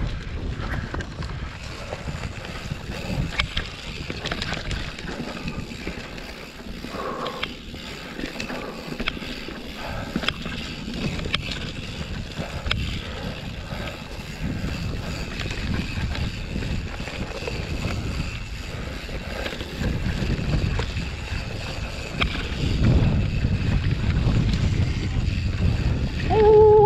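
Mountain bike rolling down a dirt singletrack: tyre rumble and the bike's rattle over bumps, with wind noise on the camera microphone. It grows louder over the last few seconds.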